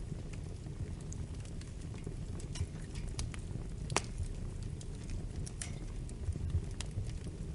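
Wood fire burning in a fireplace: a steady low rumble of flames with scattered sharp crackles and pops, the loudest pop about four seconds in.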